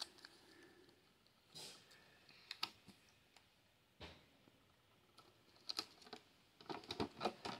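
Faint, scattered clicks and taps of plastic toy parts being handled and fitted together, with a quicker run of clicks near the end.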